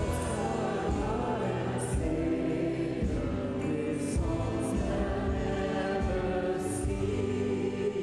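A choir of voices singing a hymn together with a church praise band accompanying, in held, sustained notes.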